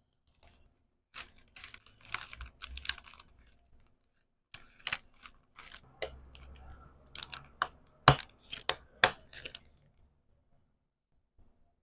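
Hand-packing of small accessories and their packaging: an irregular run of light taps, clicks and crinkly rustles in two bursts, with one sharper click about eight seconds in.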